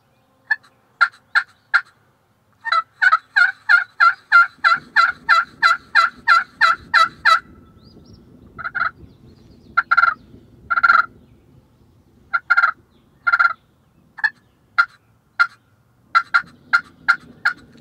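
Aluminum-over-slate turkey pot call, soft calling: hen turkey yelps scratched out by hand to draw in gobblers. A few single notes, then a fast run of about fifteen yelps at roughly three a second, then more spaced yelps and a short run near the end.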